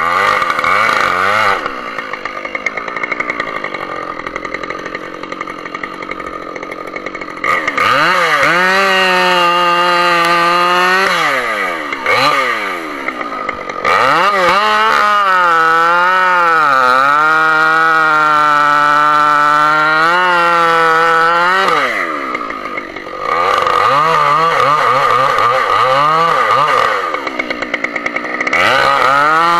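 Two-stroke Husqvarna chainsaw idling at first, then run up to full throttle in several long stretches, its pitch sagging and recovering as it works and dropping back between runs.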